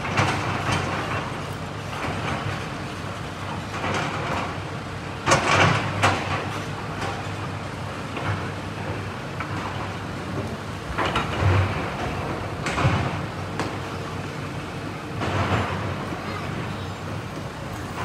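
Hydraulic excavators demolishing a building: diesel engines running under irregular clanks, scrapes and crashes of rubble, with louder crashes about five to six seconds in and again around eleven to thirteen and fifteen seconds.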